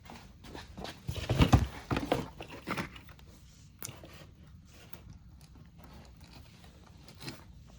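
Packaging being handled during an unboxing: a cluster of crinkling, scraping and knocking noises in the first few seconds, then faint scattered clicks.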